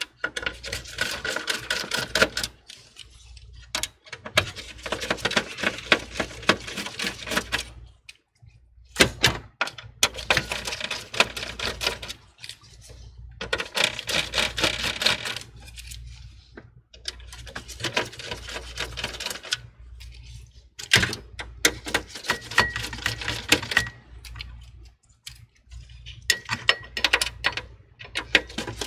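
Rapid clicking and rattling from a screwdriver backing out motherboard screws, in bursts of a few seconds with short pauses between screws.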